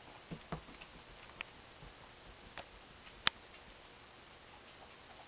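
Faint, scattered clicks and taps from two dogs play-wrestling on a dog bed, with one sharper click about three seconds in.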